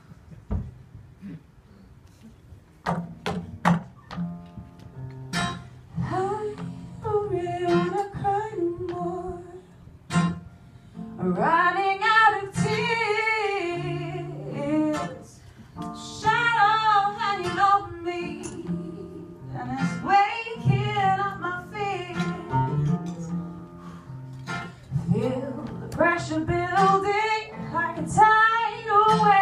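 Nylon-string classical guitar starting with single plucked notes a few seconds in, then a woman singing over it through a microphone in long phrases with a wavering pitch.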